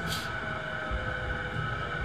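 Running noise inside a motor car of an E233-7000 series electric train: a steady low rumble of wheels on rail under a steady whine from the traction equipment. A short hiss comes right at the start.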